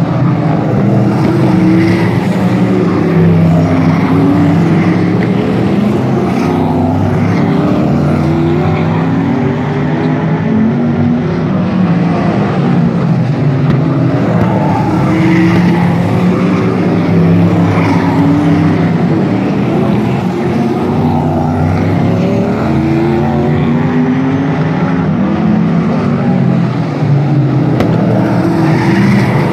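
Several sprint cars racing around a paved oval, their engines overlapping and rising and falling in pitch as they accelerate and lift through the turns. One car passes close near the end.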